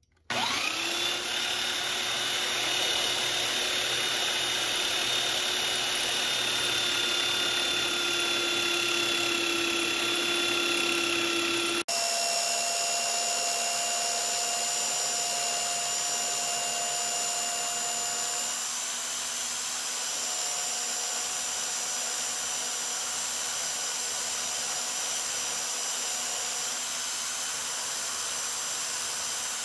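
Electric power sander starting up with a rising whine, then running steadily. About twelve seconds in the sound changes abruptly to a steady run with a different whine.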